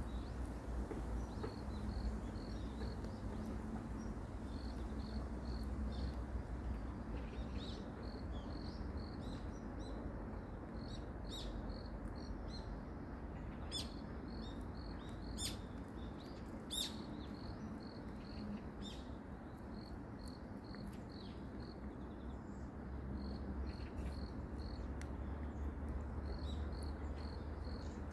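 A cat chewing dried anchovies, with a few sharp crunches about halfway through. Behind it, rhythmic high chirps repeat at one pitch, over a low rumble.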